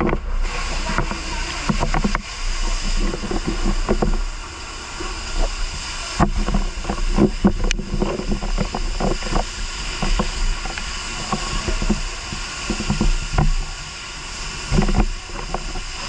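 Steady hiss of a fire hose spraying water, with many irregular knocks and bumps close to the microphone.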